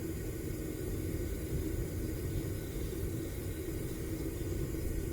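Homemade propane furnace's burner running with a steady, low rumble.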